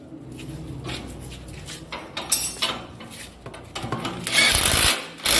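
Metal clanking and knocking, followed near the end by two louder bursts of harsh noise, each about a second long.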